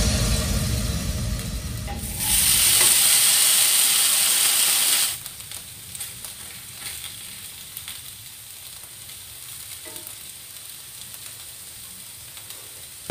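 Potato slices frying in margarine in a hot pan. A loud sizzle starts about two seconds in, as the flipped slices go back into the pan, and lasts about three seconds. It then drops to a quieter, steady sizzle with a few light clicks as the slices are arranged.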